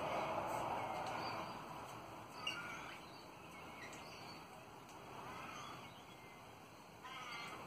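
Twenty-eight parrots (Australian ringnecks) giving short chattering calls several times, with a quick warbled call near the end. A broad rush of background noise is loudest in the first couple of seconds and then fades.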